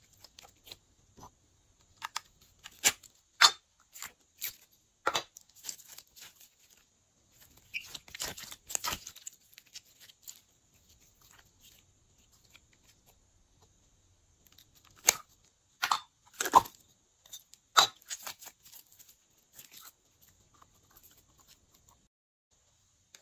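Glossy slime being squeezed, pressed and pulled by hand, giving irregular sticky clicks and pops in clusters, with quieter stretches between them.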